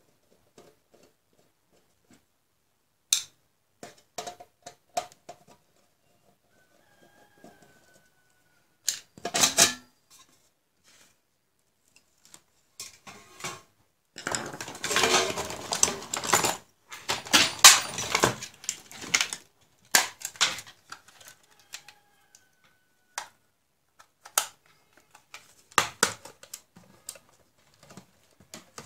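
Clicks, taps and metallic clatter from handling a PC power supply's steel case and tools on a workbench, with two denser stretches of rattling about halfway through.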